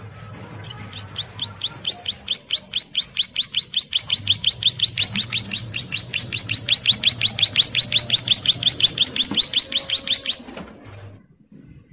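A caged prinia (ciblek) singing a long, rapid trill of repeated down-slurred notes, the drilling ngebren song. It builds louder over about ten seconds, then stops abruptly near the end.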